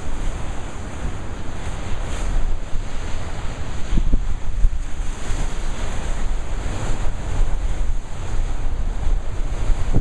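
Big storm surf breaking and crashing against the rocks of a jetty, a continuous rushing wash, with strong wind buffeting the microphone as a low rumble.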